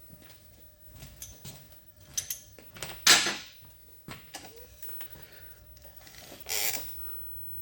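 Workshop handling noises as a workpiece is clamped up on a machine: scattered light knocks and clicks, with two short noisy rushes, the louder about three seconds in and the other near the end.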